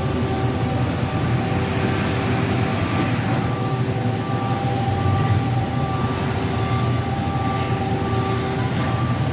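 Mazak Quick Turn Nexus 250-II CNC turning center running, a steady mechanical hum with several held whining tones, one of them cutting in and out.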